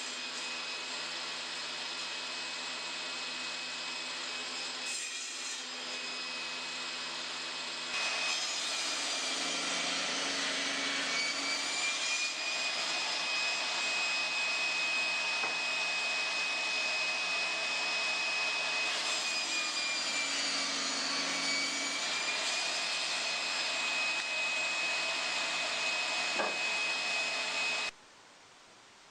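Homemade table saw's circular-saw motor running with a high whine and cutting wood. The whine sags in pitch twice as the blade takes load. The sound cuts off suddenly near the end.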